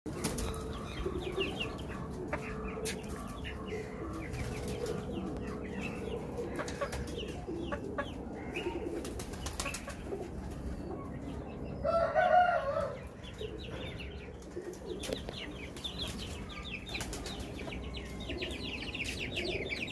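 Rampuri Aseel pullet shifting and flapping its wings on a wire-mesh cage, with scattered rustles and clicks of feathers and wire. There is a short, louder call about twelve seconds in, and faint quick chirping near the end.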